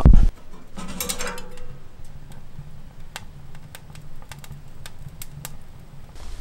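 Small fire of kindling sticks crackling in a sheet-metal wood stove with its door open: irregular sharp pops and ticks, about three a second, from a fire that has only just caught.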